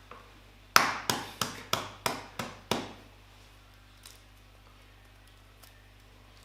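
Seven sharp knocks in quick succession, about three a second, each ringing out briefly, the first the loudest.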